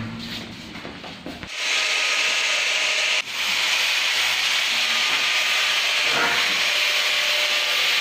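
A loud, steady hissing noise that starts abruptly about a second and a half in, breaks off for a moment near the three-second mark, and cuts off sharply at the end.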